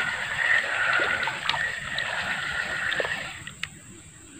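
A hooked fish splashing and thrashing at the water surface as it is drawn in to the bank. A steady high whirr runs behind it and stops about three seconds in, with a few sharp clicks.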